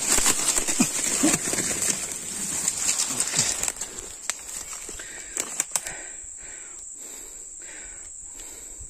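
Rustling and crackling in leaves and undergrowth for the first few seconds, with a few sharp clicks a little later, over a steady high-pitched insect drone.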